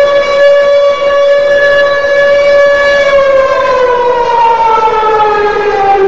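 Ice hockey arena goal horn sounding one long, loud, steady tone that sags slowly in pitch over its last few seconds.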